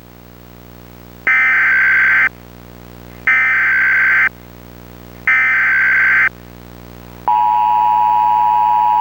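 Emergency Alert System signalling: three one-second bursts of screechy header data tones with one-second gaps, then the steady two-tone EAS attention signal starting about seven seconds in. Together they mark the start of a new emergency alert message.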